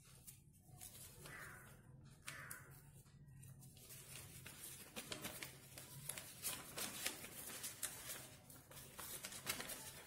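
Sheet of paper rustling and crinkling faintly as it is folded and creased by hand, with many small crackles that grow busier about halfway through.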